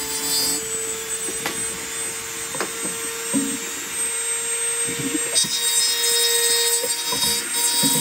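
Handheld rotary tool running with a steady whine as it grinds away part of a laptop heat sink. A harsher, hissing cutting sound comes in about five seconds in, with a few light knocks of the tool against the part.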